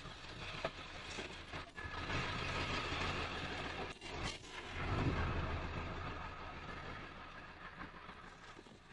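A vehicle passing by, its rumble swelling to a peak about five seconds in and then fading away, with a few light knocks of things being handled.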